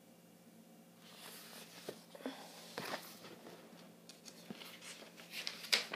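Rustling of a large hardback book being handled and lowered, with a few light knocks as it is set down, and a short hiss near the end.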